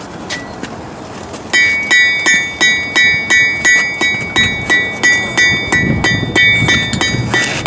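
Blacksmith's hammer striking hot metal on an anvil, drawing it out: steady blows about three a second, each with a bright metallic ring, starting about a second and a half in.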